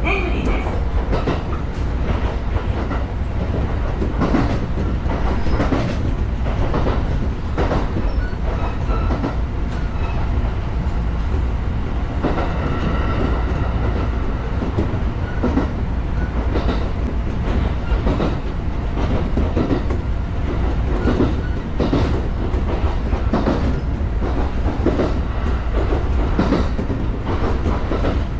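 Kintetsu commuter electric train running at speed, heard from inside the driver's cab: a steady low rumble with repeated clickety-clack of the wheels over rail joints.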